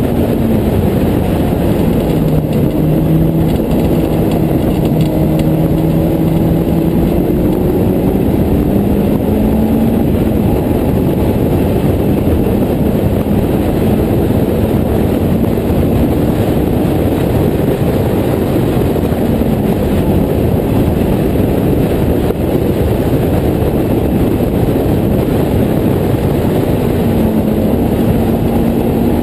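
Honda S2000 four-cylinder engine of a Westfield clubman car at racing speed, heard from its open cockpit: the engine note rises and falls with throttle and gear changes through corners, over a steady rush of wind and road noise.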